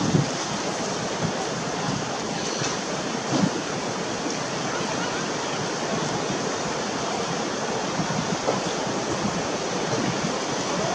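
Steady rushing noise with no distinct events, such as wind across an outdoor microphone.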